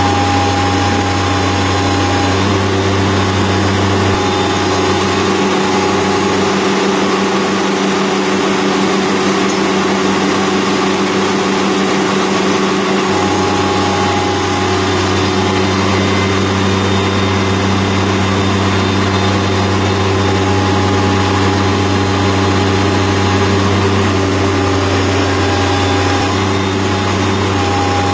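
Bobcat MT52 mini track loader's engine running steadily while it powers a hydraulic drive head installing a helical pile, with a higher tone that comes and goes. The lowest part of the engine note drops away for several seconds, starting about four seconds in.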